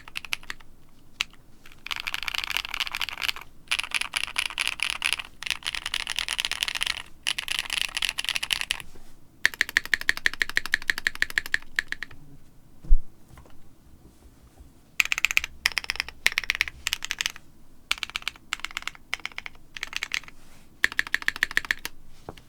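Typing on a modded KBD 5degree mechanical keyboard with Holy Panda tactile switches in yoke housings, O-ring mounted, with a tape-modded PCB and butyl dampening. Bursts of fast keystrokes come with short pauses between them, and a single loud low thump falls about halfway through.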